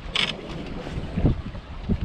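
Wind buffeting the microphone in low, rumbling gusts, with one short hissing burst just after the start.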